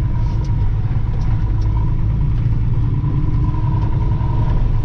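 1966 Ford F-250 pickup's diesel engine running steadily as the truck drives through snow, a dense low rumble with a thin steady whine above it.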